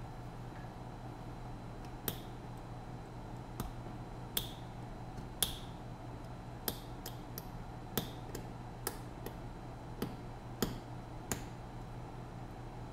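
Sharp little clicks and ticks, about fifteen at irregular intervals, as a pointed pick pries and scrapes at a tiny switch on a small circuit board to remove the broken bind button. A low steady hum runs underneath.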